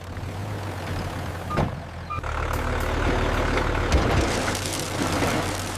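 Heavy construction vehicle's engine running, a steady low rumble with a rushing noise and scattered knocks over it.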